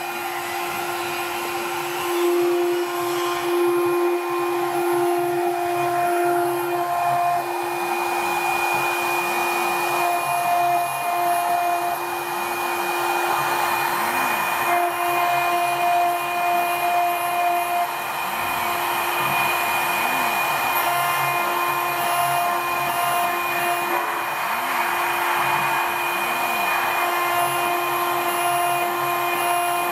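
A 6090 CNC engraving machine's spindle whining steadily as its small engraving bit cuts into a brass disc, over a hiss of cutting noise. A higher tone switches on and off every few seconds as the machine moves.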